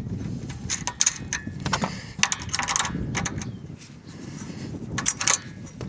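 Irregular metal clicks and knocks of bolts being dropped back through homemade solar-panel hinge brackets and handled, over the low rumble of wind on the microphone.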